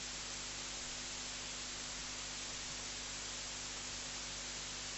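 Steady hiss with a low electrical hum underneath, unchanging throughout: the background noise of the microphone and sound system while no one speaks.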